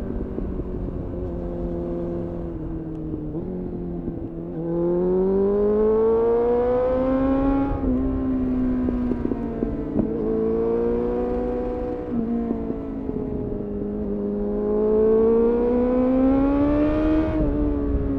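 Suzuki GSF 600 Bandit's inline-four engine through a GPR Furore Nero aftermarket exhaust, heard onboard at riding speed. The revs climb twice under throttle, about five and fifteen seconds in, and each pull ends in a sudden drop in revs. A steady wind rumble lies underneath.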